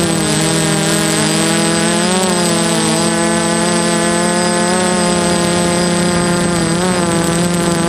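DJI F330 quadcopter's four electric motors and propellers buzzing in flight, heard up close from the camera on the craft. The pitch wavers up and down with throttle changes near the start, about two seconds in and near the end, over a thin steady high whine.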